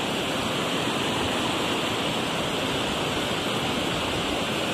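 Steady rushing of river water, an even hiss with no breaks, like water pouring over a weir.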